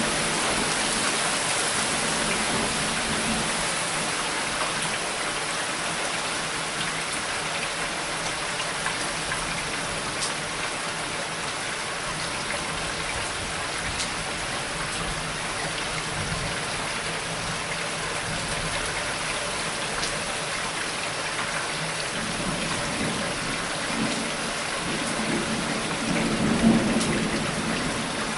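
Heavy rain falling steadily in a severe thunderstorm, with low rumbles of thunder at the start and again near the end.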